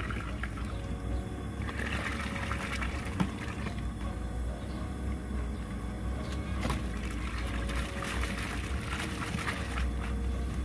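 Dry rice poured into a large aluminium pot of boiling water over the first couple of seconds, then the water bubbling and churning as the rice cooks, over a steady low rumble.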